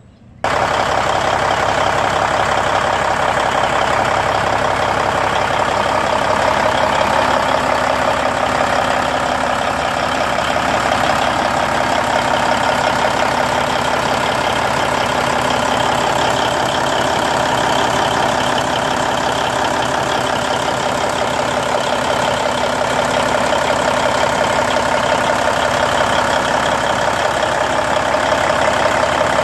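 Freshly in-frame-overhauled Cummins N14 500-horsepower red top inline-six diesel idling steadily, heard close to the open engine bay by the turbocharger.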